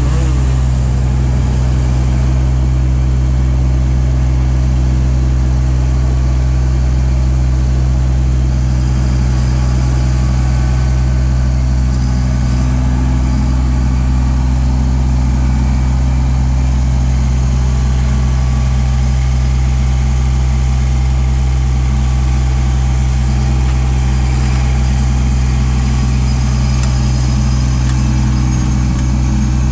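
Kubota LX2610 compact tractor's three-cylinder diesel engine running steadily at an even speed.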